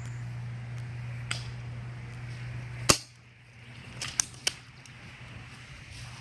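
Airsoft guns firing in sharp single shots: one about a second in, the loudest just before the three-second mark, then three quick shots about a second later.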